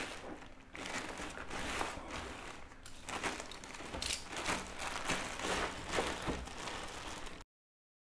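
Thin plastic courier mailer bag crinkling and crackling in irregular rustles as it is handled and pulled open by hand. The sound cuts off abruptly near the end.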